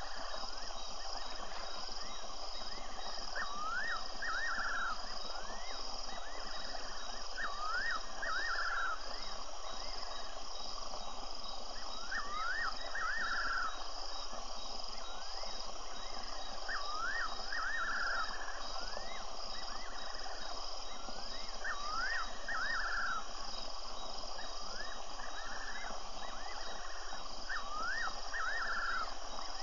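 A night bird's phrase of a few quick whistled notes sweeping up and down, repeated about every four to five seconds. The listener takes it for a fiery-necked nightjar, but puts it as a question. Under it runs a steady chorus of crickets and other insects.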